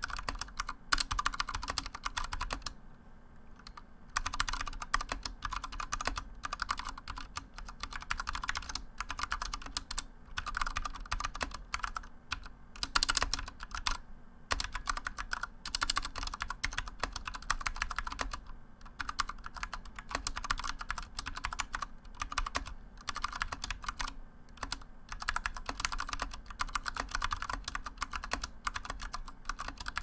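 Continuous fast typing on a Drop ALT mechanical keyboard with tactile Cherry MX Brown switches in an aluminium case: a dense patter of key clacks, with a short pause about three seconds in.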